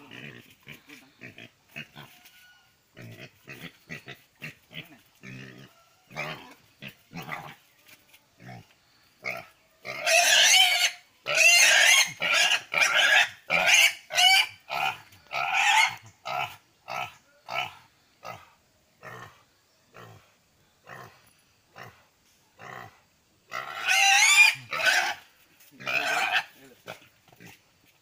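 A pig being held down grunts in short, repeated bursts. About ten seconds in it breaks into loud, high squealing for several seconds, and it squeals again near the end: distress at being restrained for an antibiotic injection.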